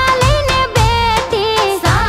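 Gujarati devotional dhun music: a studio-mixed song with a melody line that slides between notes over a steady drum beat of about two hits a second.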